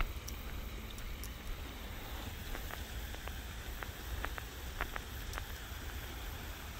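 Outdoor ambience: a steady low rumble and faint hiss, with a scatter of light clicks and crackles through the middle.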